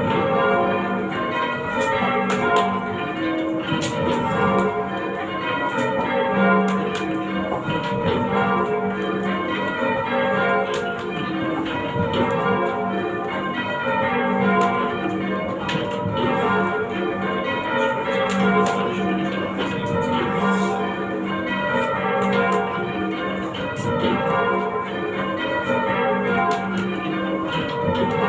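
Ring of six church bells, cast in 1649 and 1706 and tuned to F, rung full-circle in rounds: the six strike one after another from highest to lowest in a steady repeating row. The bells are noticeably out of tune with one another.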